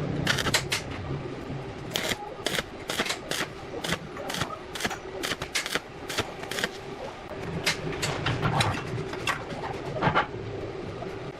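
A run of irregular sharp clicks and knocks, about twenty of them, over a faint steady hum.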